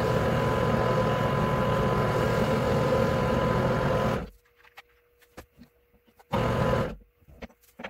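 Metal lathe running with its chuck spinning, switched off about four seconds in. A few light clicks follow while it is stopped, and it runs again briefly near the end.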